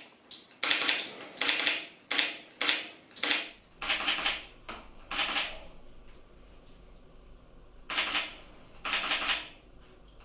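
Thick clear slime squelching and splatting in short wet bursts, about two a second, then a quieter stretch and two more splats near the end.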